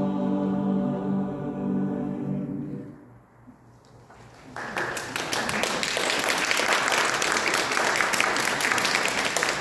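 A choir holds a sustained chord that is released about three seconds in, followed by a brief pause and then applause from a small group that continues to the end.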